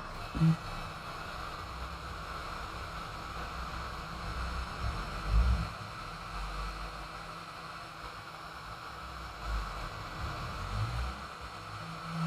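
Steady background hiss with a few soft low bumps.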